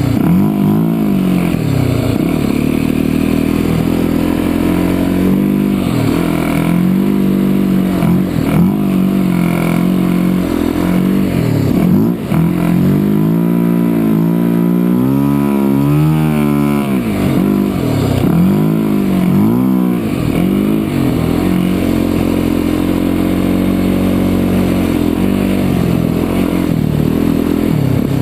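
Off-road motorbike engine running hard under constantly changing throttle, its pitch rising and falling, with one sharp rev climbing from about halfway in and dropping back a few seconds later.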